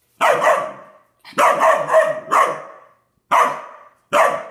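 Standard poodle puppy barking, about six barks in a row, some single and some close together.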